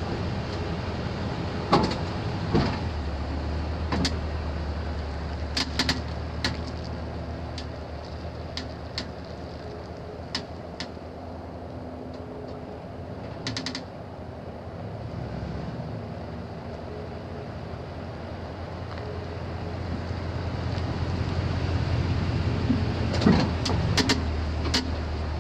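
Unexplained clicking from a 2010 Toyota Tundra CrewMax: sharp clicks at uneven intervals, singly or a few close together, over a steady low engine hum. Near the end the hum grows louder and a quick cluster of several clicks comes.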